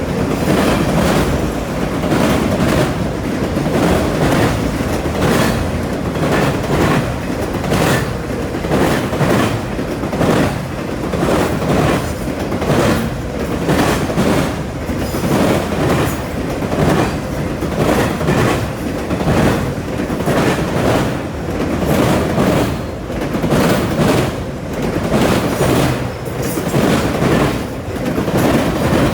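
Norfolk Southern freight train rolling past at a grade crossing: a steady rumble with a regular clickety-clack of the wheels over the rail joints, about once or twice a second.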